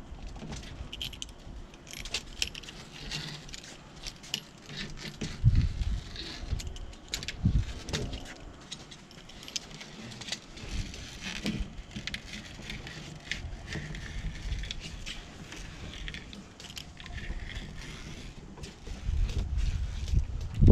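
Screen spline roller being run along the channel of a door screen frame, pressing the spline in. It gives a run of clicks and rattles, with the screen mesh crinkling and a couple of dull knocks against the frame.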